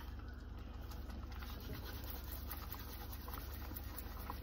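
Dried fenugreek leaves (kasuri methi) rubbed and crushed between the palms, a soft dry scratching over a low steady hum.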